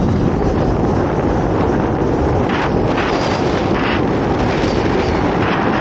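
Steady, loud wind rumble buffeting the microphone, with a couple of brief hissy swells about halfway through.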